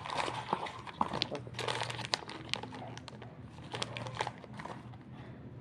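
Plastic packaging crinkling, with irregular small clicks and taps as small lures are handled.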